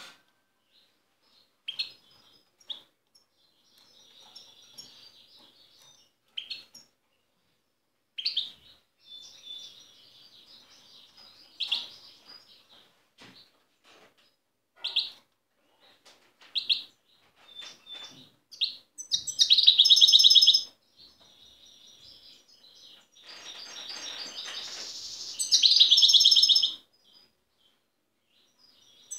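European goldfinch singing its wild-type song: scattered short high twitters and call notes, then two loud bursts of fast, dense song, the first about two-thirds of the way through and the second near the end.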